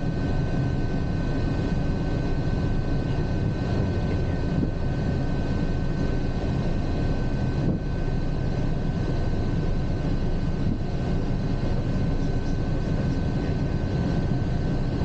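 Steady cockpit noise of a Piaggio P.180 Avanti rolling on the runway after landing, its twin Pratt & Whitney PT6A pusher turboprops running. A constant low rumble carries a steady high whine.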